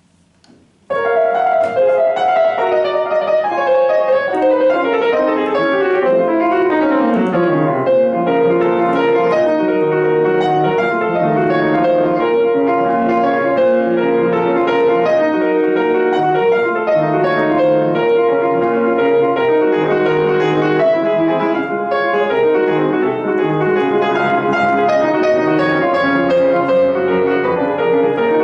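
Solo acoustic piano starting a piece after a short silence, playing quick, dense running figures, with a falling run about seven seconds in.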